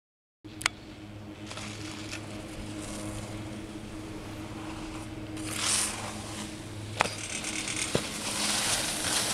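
Outdoor ambience of a ski course on a camcorder's microphone: a steady low hum with a few sharp clicks. A hiss swells about two-thirds of the way through and again near the end, as a mono-ski scrapes across the snow past the camera.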